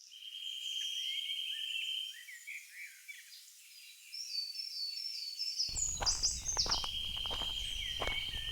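Forest ambience: birds chirping over a steady high insect trill, which stops about two seconds in and returns near the end. A run of sharp clicks comes in the second half.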